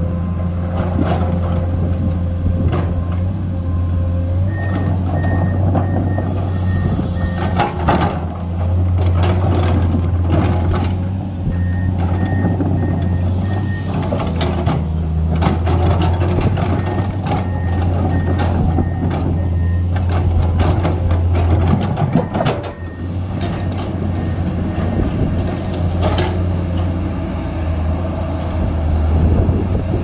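Komatsu PC210 hydraulic excavator's diesel engine running steadily under digging load, with occasional knocks. A warning alarm sounds in three runs of quick, evenly spaced beeps.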